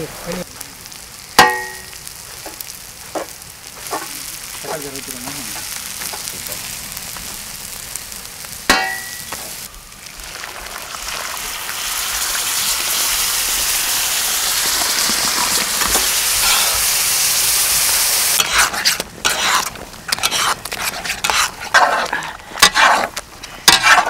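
Vegetables frying on a large flat griddle. A few ringing metal clangs early on, then a loud sizzle builds once tomato purée is poured onto the hot surface. In the last several seconds come rapid scraping and mashing strokes of a metal spatula or masher through the mixture.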